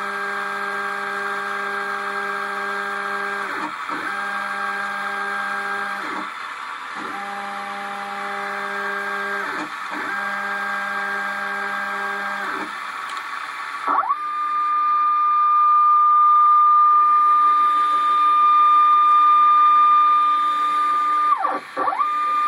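Stepper motors of a homebuilt drawer-slide CNC machine jogging its axes, whining at a steady pitch in runs of about two and a half seconds. Each run starts and stops with a quick sweep in pitch. About 14 seconds in the sound changes to a single louder, higher whine, which drops out briefly near the end and starts again.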